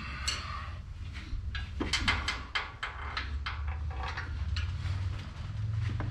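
A run of short knocks and clicks, clustered in the middle, from metal parts being handled and fitted during surface grinder reassembly, over a steady low hum.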